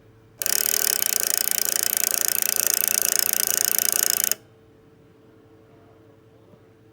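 Sony MDS-JE510 MiniDisc deck's loading-mechanism gears rattling loudly and rapidly for about four seconds, starting and stopping abruptly. This is the gear noise it makes at power-on, which the repairer suspects comes from the disc carriage not detecting its end-of-travel switch and repeatedly trying to eject, rather than from gears jumping in a mechanical jam.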